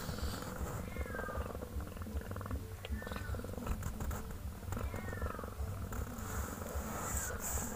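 Mother cat purring steadily and evenly while she grooms her newborn kittens, with short faint high squeaks about every two seconds.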